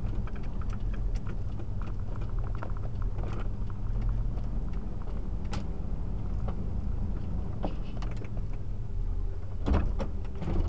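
Car cabin noise while driving slowly: a steady low engine and road rumble with small scattered clicks and rattles, and a louder thump near the end.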